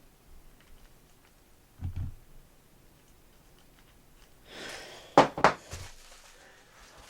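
Parts and packaging of a camera jib kit being handled: a soft thump about two seconds in, then a brief rustle and two sharp clicks in quick succession, with a fainter click after.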